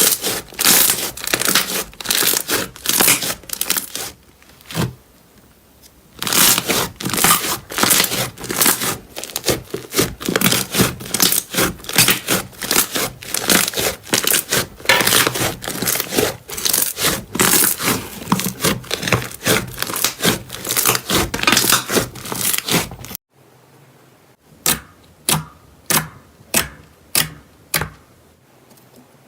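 Slime being pressed and squished by hand, giving dense runs of sharp crackling pops from trapped air. After an abrupt cut, about eight separate pops come one by one.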